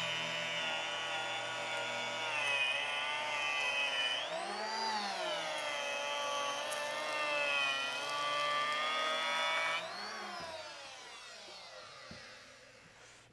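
Makita N1900B electric hand planer with a Sheartak helical cutterhead running under load, planing a hickory board at about a sixteenth-of-an-inch cut. About halfway through, its whine rises briefly and falls back. Near ten seconds it is switched off and winds down, its pitch falling away until it fades.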